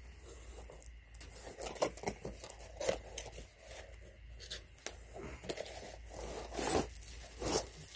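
A long cardboard air-rifle box being handled and opened by hand: irregular tearing, scraping and rubbing of cardboard, with a few sharper crackles.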